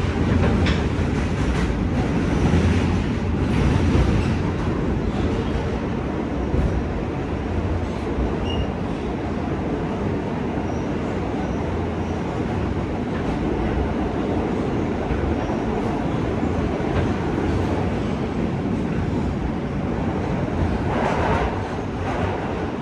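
New York City subway L train running, heard from inside the car: a steady rumble and rattle of the wheels on the track, louder for the first few seconds. There is a brief louder patch near the end.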